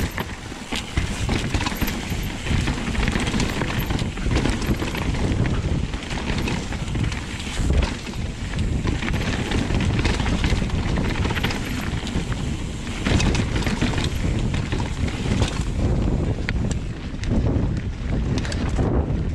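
Wind buffeting the microphone over mountain bike tyres rolling fast down a dirt and rock trail, with frequent knocks and rattles from the bike over rough ground.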